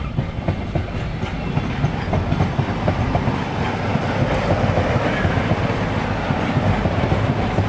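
A diesel-hauled train rolling past close by: a steady engine hum under a loud rumble, with wheels clattering on the rails.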